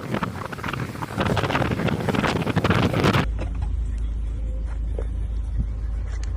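Wind buffeting the microphone in gusts, then an abrupt cut about three seconds in to a steady low rumble.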